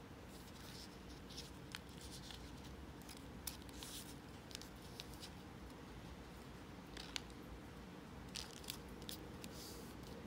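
Origami paper being folded and creased by hand on a table: faint, scattered paper rustles and crisp crackles, the sharpest about seven seconds in and a small cluster near the end.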